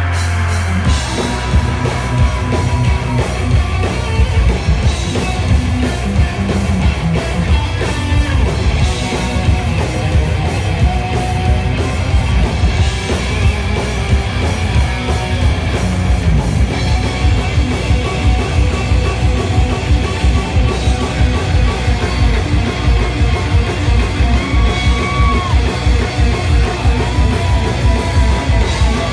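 Heavy rock band playing live and loud: distorted electric guitar over fast, driving drums, with yelled vocals.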